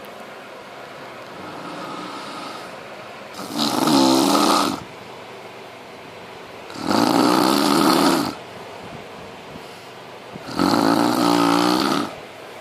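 A man snoring in his sleep: three loud snores about three and a half seconds apart, each lasting about a second and a half.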